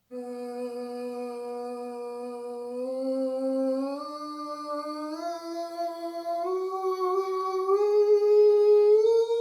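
A man's voice holding one unbroken wordless tone in a Pahn resonance voice exercise, climbing in small steps from a low pitch to nearly an octave higher and growing louder toward the end, as he reaches for his natural high level.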